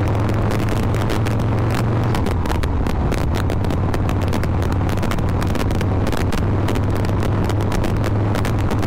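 Harley-Davidson Shovelhead air-cooled V-twin running at a steady road speed while riding, mixed with wind buffeting on the microphone.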